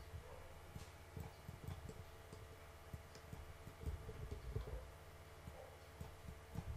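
Faint computer mouse clicks and soft low knocks from mouse and desk handling, over a steady faint hum.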